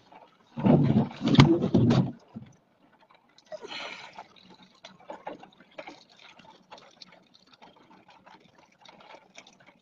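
Rain striking a car's windshield and body in scattered small ticks. A louder rush of noise lasts about a second and a half, starting just under a second in.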